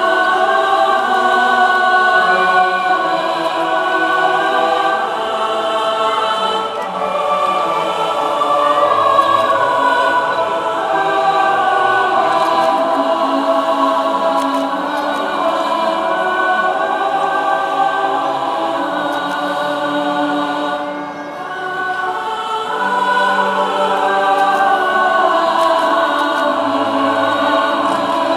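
Choral music: a choir singing long, sustained notes, with a brief softening about three-quarters of the way through.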